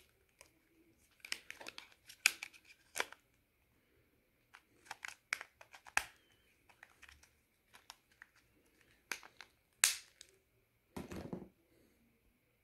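Handling noise from an old Sony Ericsson mobile phone: scattered sharp plastic clicks and taps as the phone is turned in the hands and its back cover is put back over the battery. A short rustle follows about eleven seconds in.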